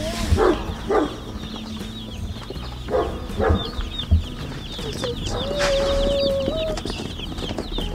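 A box of baby meat chicks peeping continuously, many high cheeps overlapping. Several lower clucks from adult hens break in, and one steady, drawn-out call lasts about a second and a half just past the middle.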